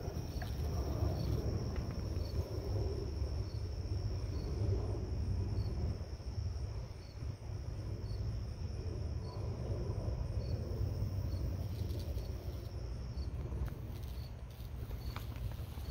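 Insects calling: a steady high-pitched trill that stops near the end, with short chirps repeating about every 0.7 s, over a low steady rumble.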